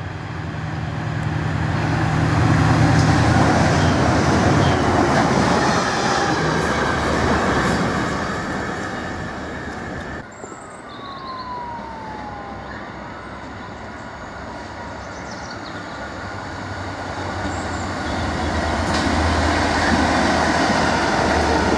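A diesel-hauled train running through a station: the locomotive's engine and the rail noise build up as it approaches and passes, then fade. After an abrupt change, a Class 66 diesel locomotive is heard approaching, its engine and the wheel noise growing louder toward the end.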